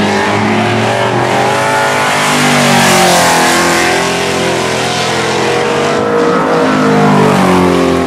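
Several winged sprint car engines racing on a dirt oval. They rise and fall in pitch as the drivers come off and back on the throttle through the turns, and are loudest as cars pass close, about three and seven seconds in.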